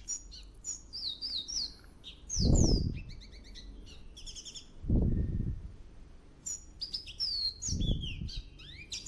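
Small birds chirping and twittering with quick rising and falling notes, broken by three loud, muffled low rushes of noise about two and a half, five and eight seconds in.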